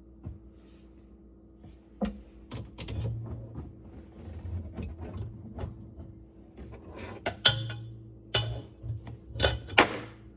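Irregular knocks, clunks and rattles of faucet parts and fittings being handled and fitted together by hand, with several sharp clacks in the second half.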